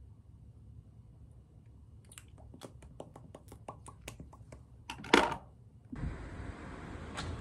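A run of small plastic clicks, getting quicker, as a red lip-tint tube is handled with both hands, then a louder short scrape. About six seconds in the sound cuts to steady outdoor wind noise on the microphone.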